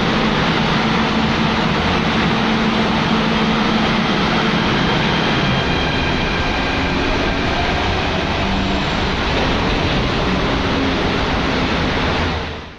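MTR K-train electric multiple unit running through a station platform without stopping: a steady, loud rumble of wheels on rail and running gear, with a faint high whine in the middle. It fades out sharply at the very end.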